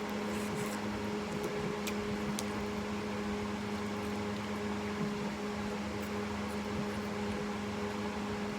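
Steady mechanical hum with a constant low drone, with a few faint clicks.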